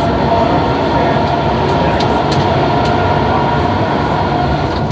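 Steady running noise of an SMRT C151 metro train heard from inside the carriage while under way: a constant rumble of wheels on the rail with a steady whine from the drive, and a few faint clicks.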